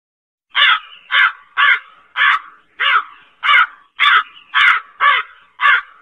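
A crow cawing in a quick, even series of about ten caws, roughly two a second, starting about half a second in.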